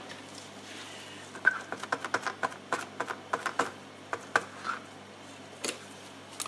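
Irregular run of small sharp clicks and scrapes as a hand tool works open a small component of the graphic equalizer, with a short pause and a few more clicks near the end.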